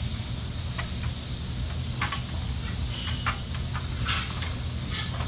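A steady low hum with several short knocks and rustles scattered through it.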